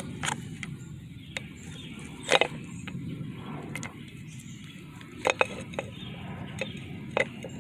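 Scattered metallic clinks and knocks of tools and parts being handled while a fan clutch is fitted, over a steady low rumble; the loudest knock comes about two and a half seconds in.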